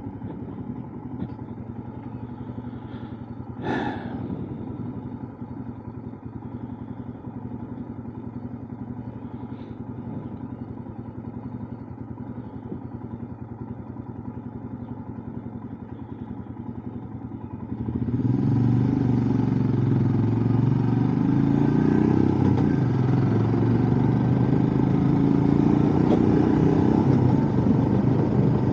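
Motorcycle engine running steadily at low revs, with one short sharp sound about four seconds in. At about eighteen seconds it gets much louder as the bike pulls away, its engine note rising and falling through the gears, with rushing wind over the microphone.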